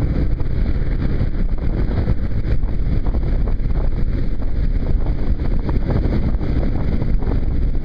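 Steady rush of wind over the microphone of a riding Kawasaki KLR single-cylinder motorcycle, with the bike's engine and tyres on the wet road underneath.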